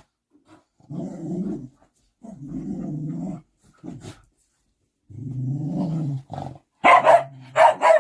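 Dog growling in three long low rumbles, then two short, loud barks about seven seconds in.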